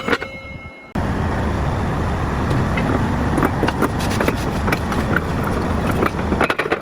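Heavy diesel equipment running loud, with scattered metallic knocks and clanks. The noise drops briefly just after the start and comes back abruptly about a second in.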